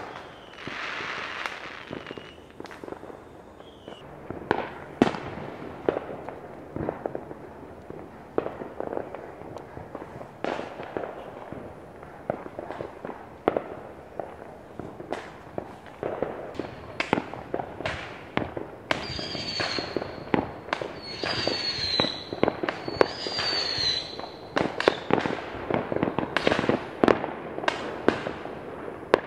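Neighbourhood fireworks going off: a dense run of bangs, booms and crackling pops, with a few short, high, falling whistles about two-thirds of the way in.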